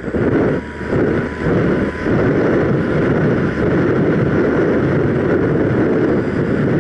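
Airflow rushing over the microphone of a camera mounted on a ParkZone Radian Pro RC glider in flight: a loud, steady rushing noise that dips briefly three times in the first two seconds.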